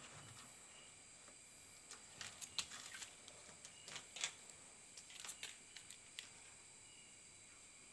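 Faint, irregular clicks and light scrapes, bunched about two to six seconds in, as a water monitor lizard climbs out of a plastic basin of water and over an aluminium ledge.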